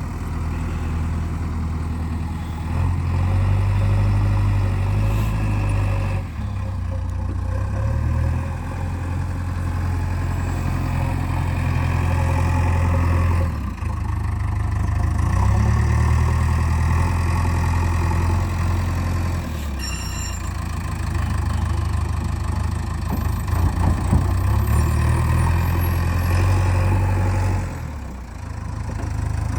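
JCB 3DX backhoe loader's diesel engine running under changing load while digging and loading mud. Its low steady drone swells and eases in stages every several seconds.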